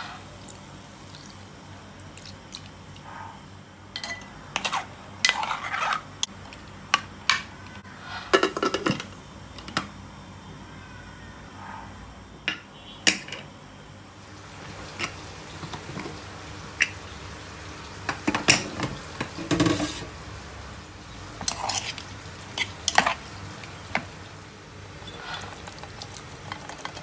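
Kitchen utensils clinking and knocking against dishes in irregular clusters, with some stirring, over a faint steady hum.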